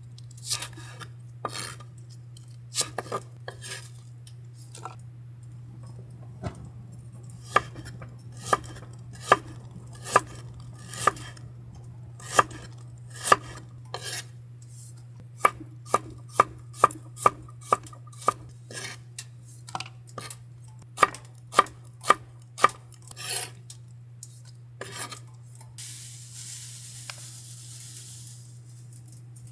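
A kitchen knife chopping vegetables on an end-grain wooden cutting board: a series of sharp knocks, at first about one a second, then quicker at about two a second. Near the end comes a short soft hiss.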